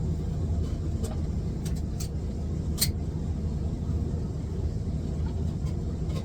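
Steady low rumble of an airliner's cabin as the plane taxis before takeoff, with a short sharp click a little under three seconds in.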